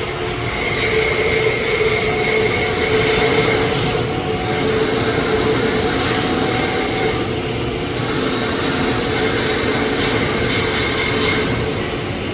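Welding arc on a tube running steadily: a continuous hiss with a constant hum and a high whine.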